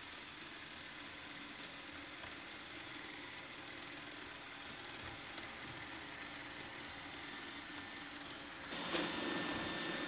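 Roomba 800-series robot vacuum running on a hardwood floor: a steady whirring hiss from its motor and brushes, with a faint hum. It gets louder about nine seconds in.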